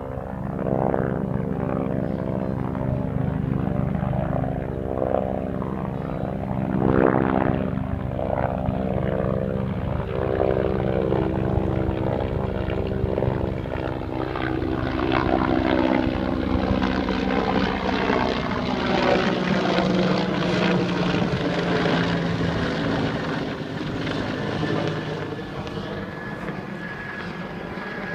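Bell UH-1 Huey helicopter flying past, its two-bladed main rotor beating steadily. The sound is loudest about seven seconds in, then eases a little near the end as the helicopter draws away.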